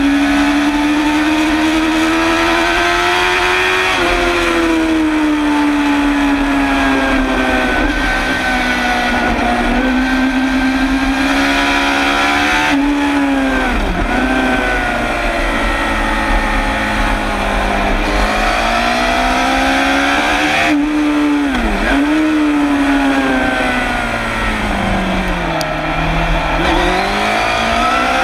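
Suzuki GSX-R750 SRAD's inline-four engine racing at high revs, heard from beside its exhaust silencer. The pitch climbs and falls through the gears, with several sharp dips as the throttle is shut and the rider changes down, and the revs sink low for a slow corner near the end.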